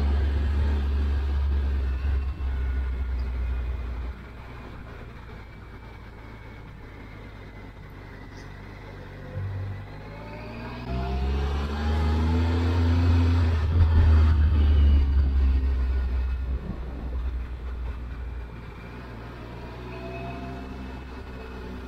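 Triumph Tiger 1200 Explorer's three-cylinder engine accelerating, its note rising in pitch under a heavy low rumble. It eases off for several seconds after the first few, then pulls hard again from about eleven seconds in, loudest a couple of seconds later.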